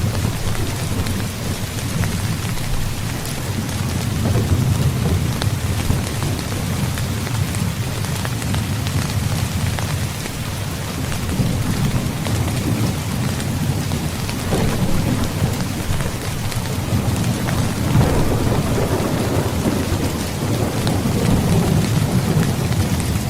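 Steady heavy rain falling, with low rolling thunder rumbling underneath that swells and fades several times.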